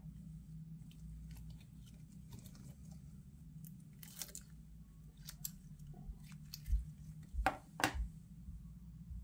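Pizza cutter rolling and pressing through a large lump of glitter slime, giving scattered sticky crackles and clicks. There are two louder pops a little over two-thirds of the way in.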